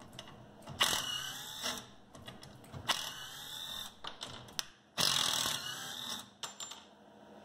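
Hercules 12V cordless impact driver backing deck screws out of soft wood in reverse, hammering in about four short bursts with pauses between.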